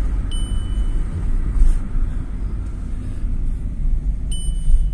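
Car running, with a steady low rumble, and a short high electronic warning beep from the car near the start and again near the end.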